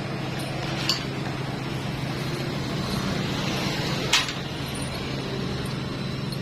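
Two sharp metallic clinks about three seconds apart, the second louder, as metal engine parts or tools are handled on the bench, over a steady low hum.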